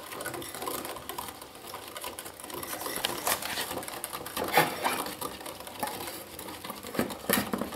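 A small wire whisk beating quickly against a ceramic bowl, stirring starchy pudding powder and sugar into cold soy milk: a rapid, steady clatter and scrape. Near the end, a metal tin's lid is pressed shut with a couple of sharper clicks.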